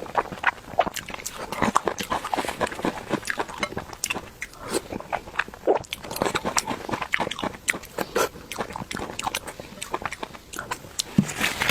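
Close-up eating sounds: wet chewing and mouth smacking, a dense run of short clicks, as soft pig brain in red chili oil is eaten.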